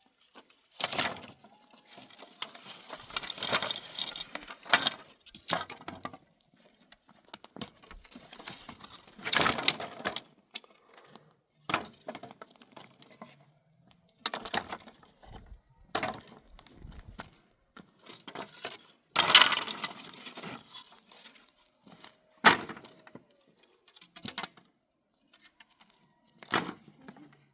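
Wood cracking and knocking in irregular bursts, a dozen or so sharp knocks mixed with several longer crackling snaps, as pieces of wood are broken and handled.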